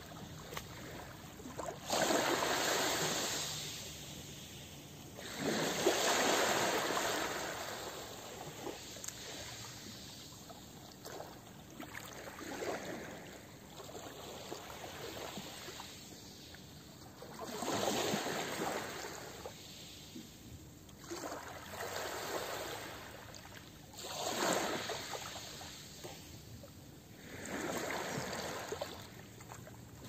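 Small waves breaking and washing up a pebble beach, about seven surges in a row every few seconds. Each surge swells and fades, with the shingle rattling as the water moves the pebbles.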